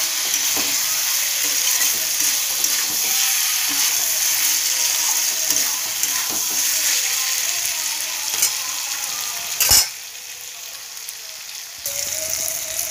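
Spiced vegetables and fried eggplant sizzling in hot oil in a metal pan while a spatula stirs and scrapes them, with scattered clicks of the spatula on the pan and one sharp clack about ten seconds in. The sizzle then drops off for a couple of seconds and picks up again near the end.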